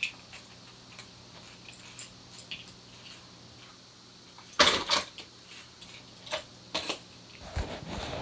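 Fishing lures and their metal hooks clinking and rattling as tangled lures are pulled apart by hand, with small scattered clicks and a louder clatter a little past halfway, then another shortly after.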